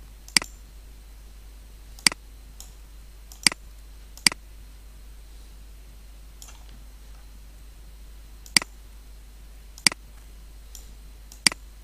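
Computer mouse clicking: about seven sharp single clicks at irregular gaps of one to four seconds, with a few fainter clicks between them.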